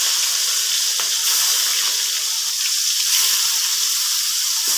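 Bhetki fish-bone pieces sizzling as they deep-fry in very hot oil in an aluminium kadai, a steady hiss, as more pieces are dropped in one by one.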